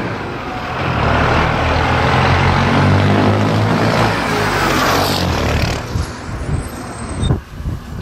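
Loud engine sound in an intro sting: a motor running steadily with a thick low drone, then fading, with a sharp hit about seven seconds in.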